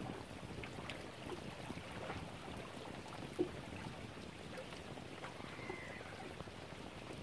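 Small waves lapping at the lake's edge, an even watery wash with little ticks and splashes, and one short knock about three and a half seconds in.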